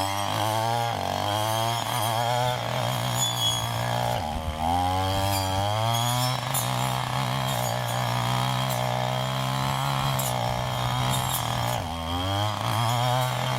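A small petrol engine running, its pitch rising and falling as it is revved up and down several times.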